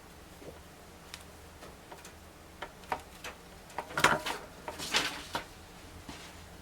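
Small clicks and scrapes of a jeweler's flathead screwdriver and wire being worked at the screw terminals of a solderless bass preamp plate, with a burst of louder clicks and rustling about four to five seconds in.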